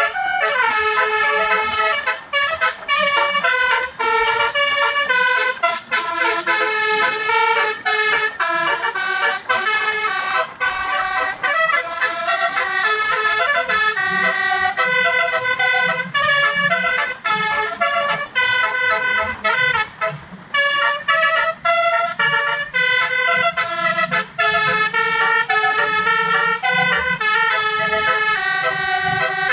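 Basuri telolet horn, a multi-tone vehicle horn, playing a quick melody note after note with short breaks between phrases.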